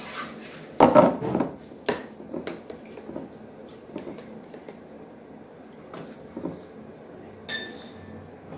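Cookware and utensils clattering and knocking while cooking: a loud clatter about a second in, a sharp knock, scattered light clicks, and a ringing metal clink near the end.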